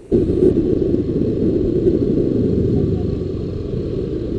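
Steady heavy wind rumble on the built-in microphone of a Xiaomi Yi 1 action camera on a riding motorcyclist's helmet, with the motorcycle's running mixed into it. It starts suddenly just after the beginning.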